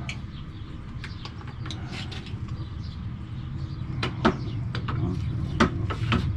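Metal parts of a disassembled tilt-and-trim unit being handled, giving a few sharp clicks and knocks, the loudest about four and five and a half seconds in, over a steady low hum.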